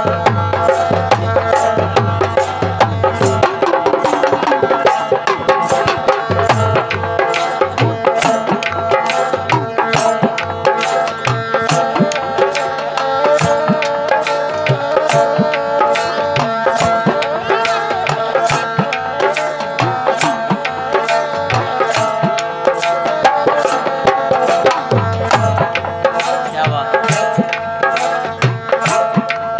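Instrumental opening of a devotional folk song: a fast, steady hand-drum rhythm under a sustained melodic line, with no singing yet.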